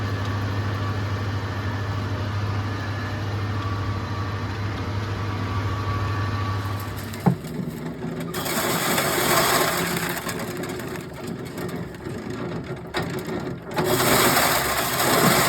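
An engine running steadily with a low hum for about seven seconds; after a click it gives way to a louder, rougher noise that drops out briefly near the end and returns.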